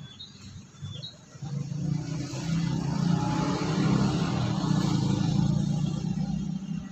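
A motor vehicle passing by: its engine grows louder from about a second and a half in, is loudest in the middle and fades away near the end.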